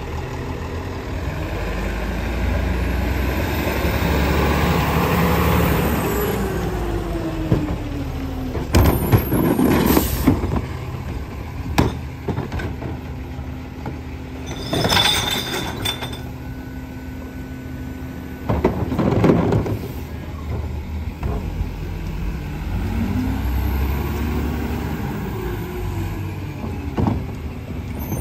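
Peterbilt garbage truck with a New Way rear-loader body at work: its diesel engine revs up and back down twice, with sharp air-brake hisses and a few bangs in between as recycling carts are tipped into the rear hopper.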